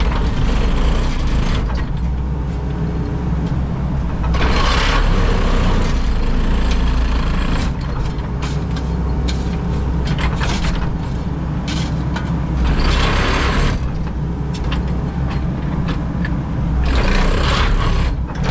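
Diesel excavator running steadily under load while backfilling a trench, its hydraulics working, with about five short bursts of rushing, scraping noise as dirt is pushed and dumped.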